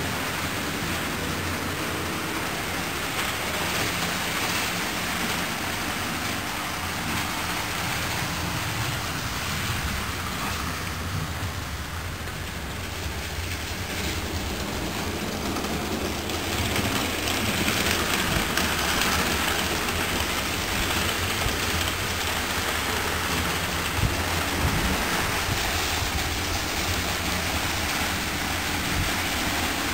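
Model train running on the layout's track: a steady rumble and rattle of wheels on rails with a motor hum, growing louder about halfway through as it comes nearer.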